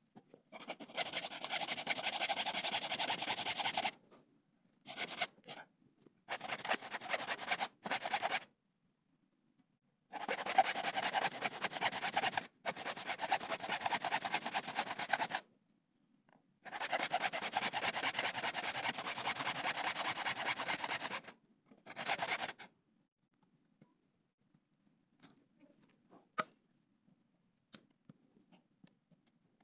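Hacksaw blade in a homemade rebar frame sawing through a wooden stick: a rasping back-and-forth in several bouts of a few seconds each, with short pauses between. The sawing stops about two-thirds of the way through, leaving only a few faint clicks.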